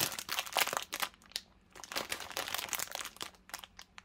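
Clear plastic wrapping on a packet of stockings crinkling as hands handle and turn the packet, in irregular bursts with a brief lull about a second in.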